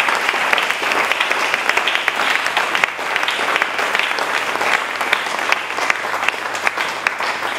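Church congregation applauding, a dense, continuous patter of many hands clapping.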